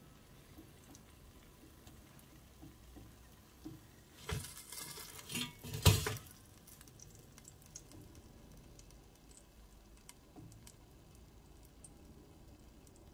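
A crispy breaded chicken fillet being turned over by hand on an air fryer's basket grill: a few light rustles and crackles, with a short knock a little before six seconds in. The rest is very quiet.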